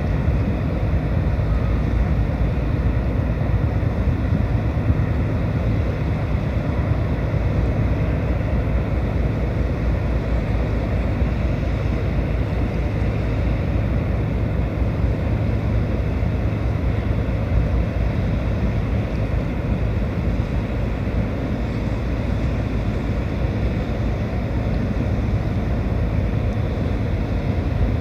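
Car ferry Akebono-Maru's engines running with a steady low rumble and hum as the ship turns around in harbour, with wind buffeting the microphone.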